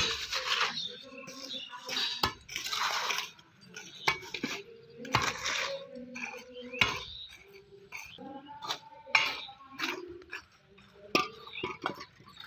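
Irregular metallic clinking and scraping: sharp clinks mixed with short rasping scrapes.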